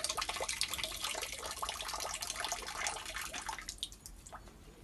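Water pouring in a thin stream out of a part from a flooded Worcester Bosch gas boiler and splashing into a plastic tub. The stream stops about three and a half seconds in, leaving a few drips. The boiler was flooded by rainwater backing up a condensate pipe teed into a rainwater downpipe.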